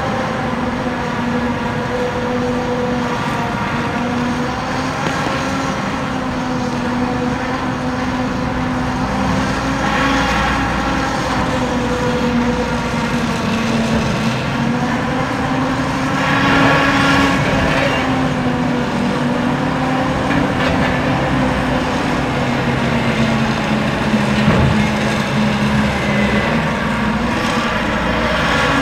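The Silver Spade, a Marion 5760 electric stripping shovel, running with a steady machinery hum whose pitch drifts slightly as it works. It swells louder about a third of the way in and again a little past halfway.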